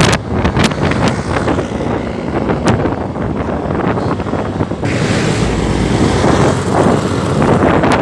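Wind rushing and buffeting over a phone's microphone on a moving motor scooter, with a few knocks near the start as the phone is handled.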